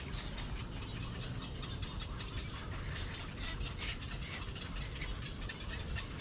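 A flock of birds calling: many short calls scattered throughout, over a steady low background rumble.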